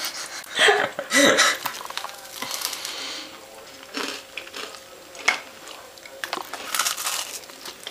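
Handling and eating crunchy homemade chocolate biscuits, with scattered small clicks and knocks and a brief murmured voice about a second in.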